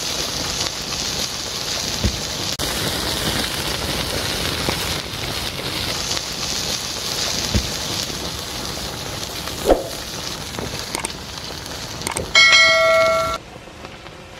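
Steady hissing and crackling of molten lava cooling and smoking over a foil-wrapped fish, with a few soft knocks. Near the end a bell-like ringing tone sounds for about a second, then the hiss cuts off to a much quieter level.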